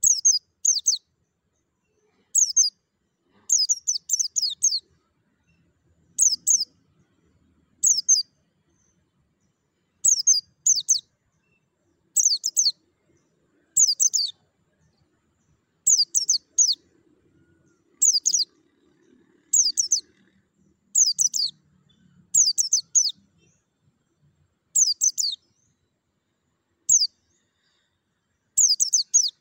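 A caged white-eye (pleci) sings short bursts of rapid, high-pitched chirping notes. Each burst lasts under a second and comes again every second or two.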